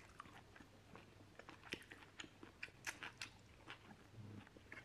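Faint eating sounds: a metal fork clicking and scraping in a plastic salad tub, with crunchy chewing of fresh salad, in irregular soft clicks and crunches.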